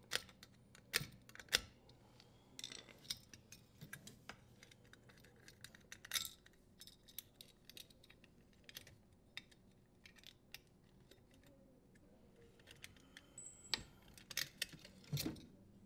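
Faint, scattered small metallic clicks and rattles of a strain relief nut being unthreaded and the strain relief and power wires pulled from a dishwasher's sheet-metal terminal box, with clusters about three seconds in, around six seconds, and near the end.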